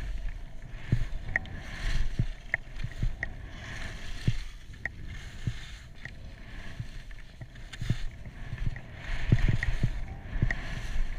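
Skis scraping and hissing over a mogul run, with irregular low thumps and short clicks as the skier turns through the bumps, and wind buffeting the microphone.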